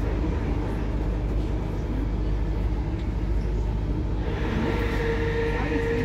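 Steady rumble of a moving electric passenger train heard from inside the carriage: wheels on the rails and the running gear. From about four seconds in, a steady high whine and a hiss join the rumble.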